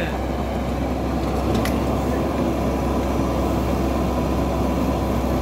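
Komatsu mini excavator's diesel engine running steadily under load as it hauls a stuck vehicle out of the mud, a low even rumble.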